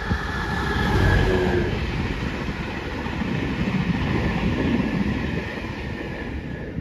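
Diesel passenger train passing at speed, its wheels running over the rails with a clickety-clack. It is loudest about a second in, then fades as it draws away.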